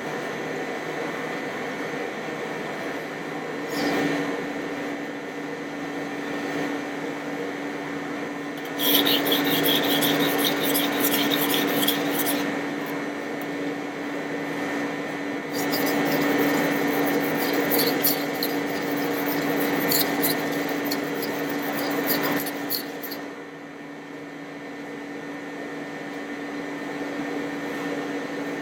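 A kitchen knife blade rubbed back and forth across a whetstone, with a steady rasping that gets louder from about nine to twelve seconds and again from about sixteen to twenty-two seconds. A steady hum runs underneath.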